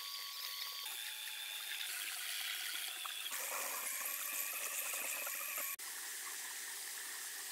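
Handheld belt sander grinding against a spinning plywood drum shell on a drill-powered lathe, a steady hiss with a thin whine. The sound cuts off sharply about six seconds in and is replaced by a similar, slightly quieter hiss of sandpaper rubbing on the turning wood.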